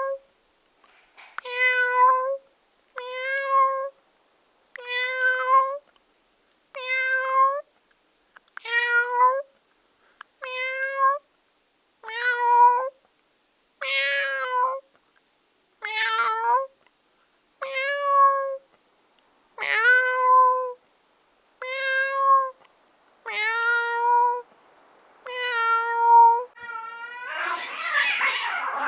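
A cat meowing loudly over and over, about one drawn-out meow every two seconds, each at much the same pitch. Near the end comes a harsher, noisier sound.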